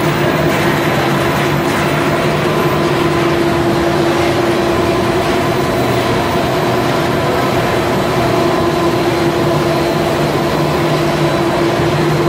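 Snack food production line machinery running: a steady mechanical hum with several held tones over a constant noise, unchanging throughout.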